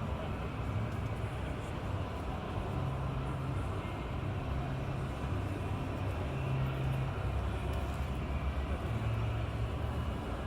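Steady outdoor background noise with a low hum that shifts in pitch every second or two.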